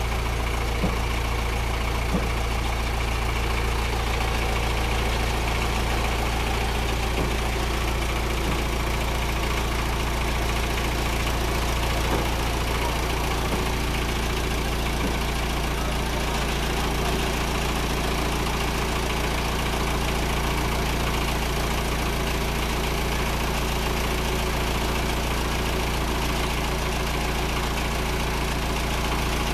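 Engine of a homemade bore-well drilling machine running steadily at a constant speed during a trial run.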